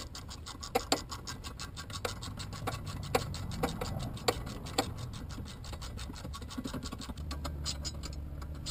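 Hand ratchet wrench clicking rapidly and steadily while tightening brake caliper bolts, with a few sharper, louder clicks in the first half.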